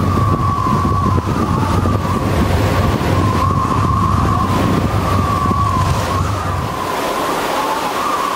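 Sailing yacht's engine running with a steady low hum under wind noise and a wavering high whistle; the engine hum drops out about seven seconds in while the whistle carries on.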